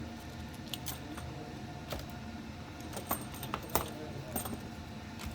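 Scattered light clicks and crinkles of small plastic bags and adhesive pieces being pulled off a radio unit's antenna connectors, a few with a bright metallic tick.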